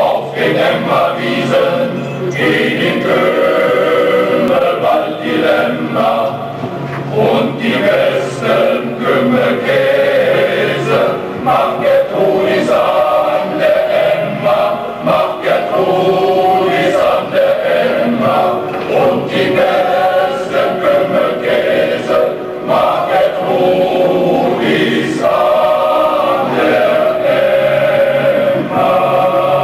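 A men's choir singing with keyboard accompaniment, held notes one after another without a break.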